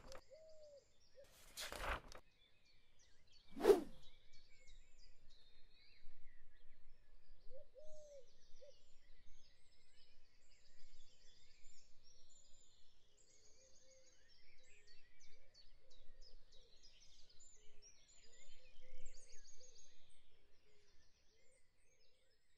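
Faint birds chirping throughout. Two short swishes come near the start; the second, about three and a half seconds in, is the loudest.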